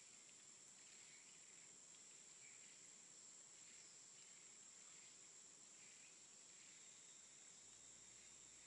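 Near silence: a faint steady high-pitched hiss, with very faint soft scratches of a gel pen's tip moving over paper.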